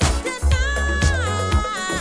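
Funky disco-style background music with a steady beat and heavy bass, and a held high note that slides down to a lower one partway through.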